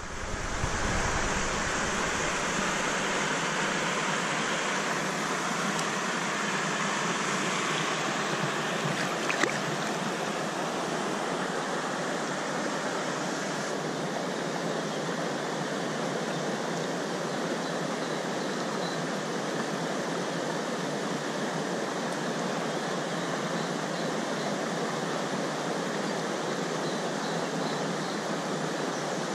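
Shallow river water running over stones: a steady rush of flowing water, with one faint click about nine seconds in.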